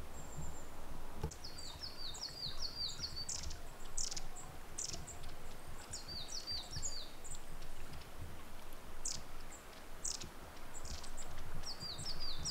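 A small songbird sings a short phrase of quick, high, falling notes three times, with short sharp high calls in between, over faint low wind rumble.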